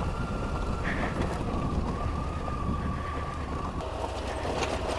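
KTM 890 Adventure R's parallel-twin engine running at low revs as the bike crawls over loose rock, with a thin steady whine that drops in pitch twice, about two seconds in and near four seconds in.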